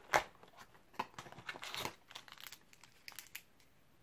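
Cardboard door of an advent calendar being pushed in and torn open, with a small plastic treat packet crinkling as it comes out: a busy run of tearing and crinkling over the first two seconds, then a few light clicks.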